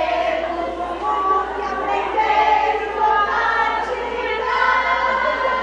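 A group of voices singing together in chorus, holding sustained notes.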